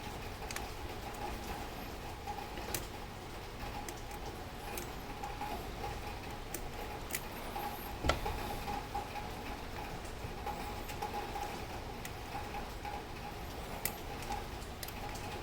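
Scattered light clicks and taps at irregular intervals, the sharpest about eight seconds in, over a steady faint hum.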